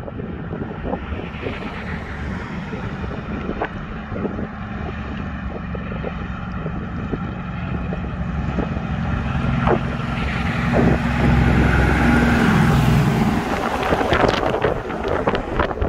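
A tipper road train's diesel engine approaching and passing close by. It grows louder for about ten seconds, and its pitch drops as the prime mover goes past, followed by rattling and tyre noise as the trailers roll by. Wind buffets the microphone throughout.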